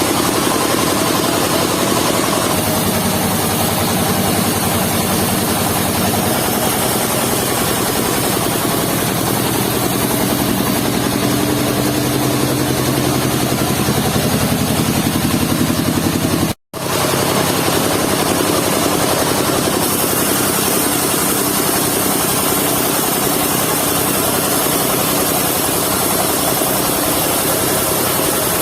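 Engine of a mobile village sawmill running steadily under load, its pitch shifting a few times. The sound cuts out completely for an instant about two-thirds of the way through, then carries on unchanged.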